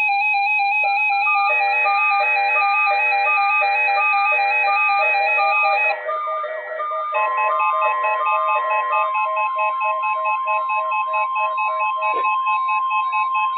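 Electronic melody of repeating beeping tones, joined about seven seconds in by a steady single tone near 1 kHz: the NOAA Weather Radio 1050 Hz warning alarm sounding for a weekly test.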